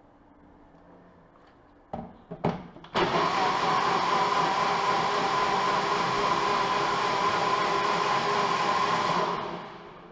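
Two knocks as the cup is set onto the base, then a Sencor Nutri Blend 1000 W personal blender motor running at a steady pitch for about six seconds, blending frozen fruit and milk into a smoothie, then spinning down near the end.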